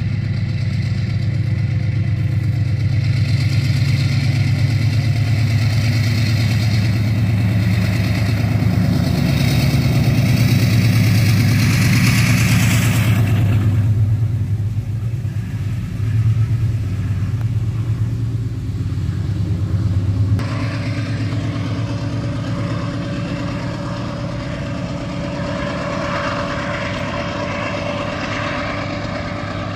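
GE diesel-electric locomotives (BB36-7 and U20C) running under power as the train passes: a steady low engine rumble. It is loudest in the first half. The sound shifts abruptly about halfway through and again about two-thirds through.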